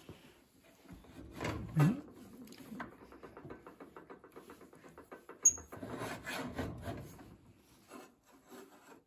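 Scraping and knocking as a table saw's blade-tilt mechanism is adjusted and a metal speed square is shifted against the blade, with a knock near two seconds in, a quick run of even clicks a few seconds in, and a sharp metallic click about halfway through.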